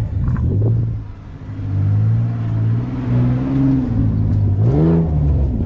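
Off-road 4x4 vehicle's engine running and revving. The level drops briefly about a second in, then the engine speed swells up and back down twice in the second half.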